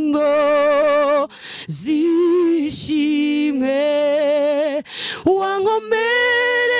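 A woman singing a Kinyarwanda worship song unaccompanied, holding long notes with vibrato. She breaks for short breaths between phrases.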